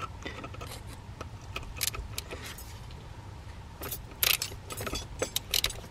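Metal hand tools clinking and clicking as a tight T50 Torx bolt on an engine bracket is worked loose. The clicks are scattered, with a sharper cluster about four seconds in and more near the end.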